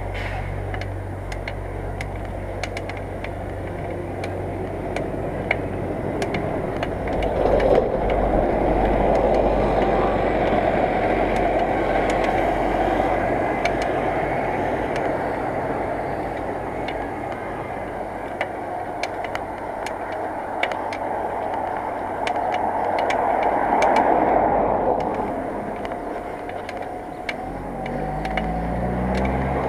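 Road traffic and wind rush heard from a moving bicycle, with motor vehicles passing that swell loudest about a third of the way in and again near the end. Scattered light clicks run through it.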